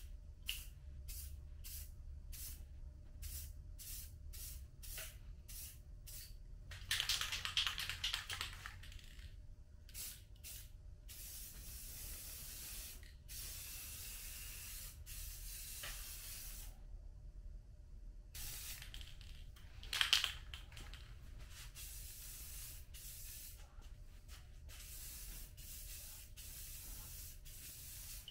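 Aerosol can of Fusion all-in-one paint and primer spraying: a quick run of short hissing bursts, then longer hissing passes with brief pauses between them.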